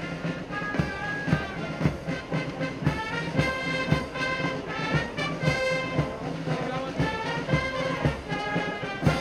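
Band music with brass instruments playing a melody over a steady beat, about two beats a second.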